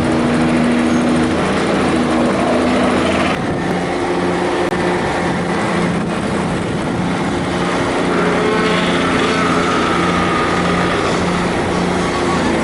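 Hydraulic vibratory pile driver and its carrier machine's engine running, a loud steady mechanical drone whose low hum shifts pitch a couple of times, with a higher whine joining about two-thirds of the way through.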